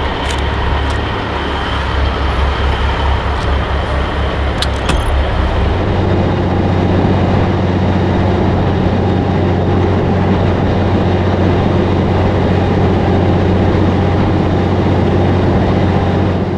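Diesel engine of a cabover Peterbilt semi truck running with a steady low drone. About six seconds in its pitch steps up and then holds steady. A few sharp clicks sound in the first five seconds.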